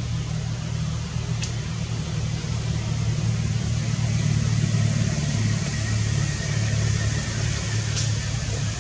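Steady low engine rumble, with a faint click about a second and a half in and another near the end.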